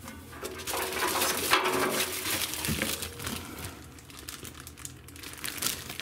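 Plastic bag holding the user manual and paperwork crinkling as it is grabbed and handled inside a washing machine's steel drum. The crackling is busiest over the first three seconds, then thins out.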